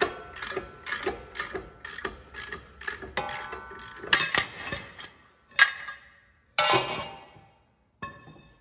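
Hand ratchet clicking about twice a second as the three-jaw gear puller's center bolt is backed off, with faint metallic ringing under the clicks. Then come a few louder clanks of metal on metal as the puller is taken off the shaft.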